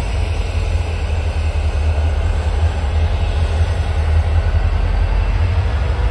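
Union Pacific diesel-electric freight locomotives running at low speed close by, a steady low engine rumble with a constant haze of mechanical noise.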